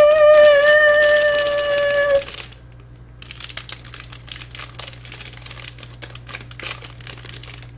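A loud held tone with a few overtones, slowly falling in pitch, stops about two seconds in. Then comes quieter, irregular crinkling and clicking of snack packaging being handled.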